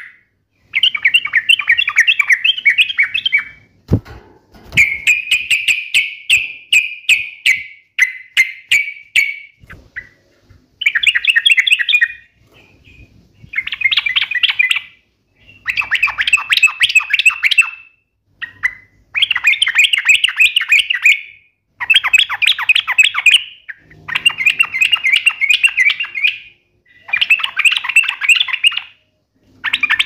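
Yellow-vented bulbul (trucuk) singing in fast, chattering bursts of rapidly repeated sharp notes. There are about ten bursts of two to four seconds each, with short pauses between them. There is a faint knock about four seconds in.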